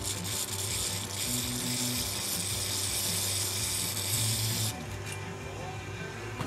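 Aerosol can of brake parts cleaner spraying onto a brake caliper piston in one long hiss that stops about three-quarters of the way through.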